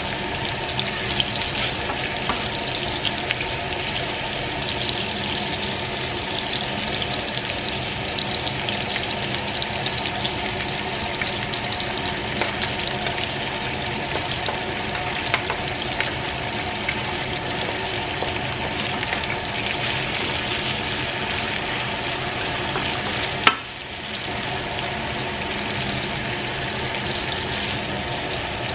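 Onions, garlic and shallots sizzling in hot oil in a nonstick Scanpan frying pan, stirred with a plastic spatula, the sizzle crackling steadily as green chilies and green tomato go in; a faint steady hum runs underneath. One sharp knock sounds about two-thirds of the way through.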